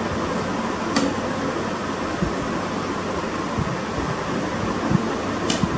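Steady fan noise fills the room, with a light clink about a second in from the glass curry bowl being handled and a few soft low knocks later.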